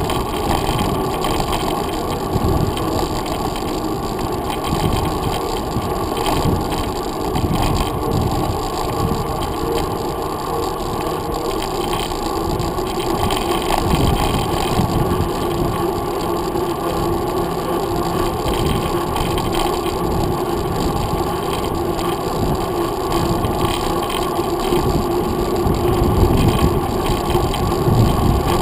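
Muffled, steady rumble of a mountain bike rolling along a paved trail: tyre and road vibration carried through a handlebar-mounted GoPro Hero 2 in its sealed housing, with a faint steady hum under it.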